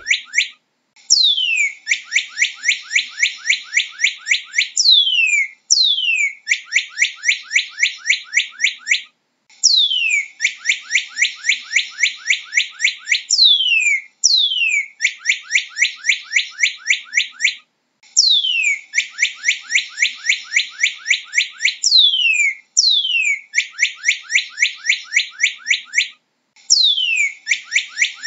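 Northern cardinal singing in repeated phrases a few seconds long, with brief pauses between them. Each phrase opens with a long whistle sliding down in pitch and runs into a fast series of short down-slurred notes, about seven a second.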